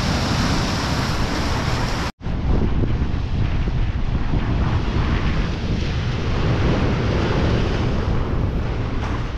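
Strong wind buffeting the microphone over the sea surging against the jetty rocks. The sound drops out for an instant about two seconds in.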